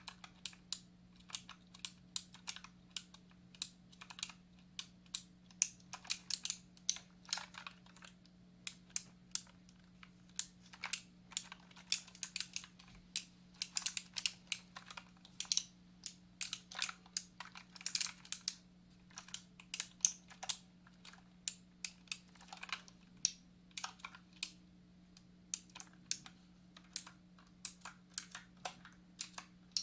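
Typing on a computer keyboard: irregular key clicks, several a second, with short pauses between runs, over a faint steady low hum.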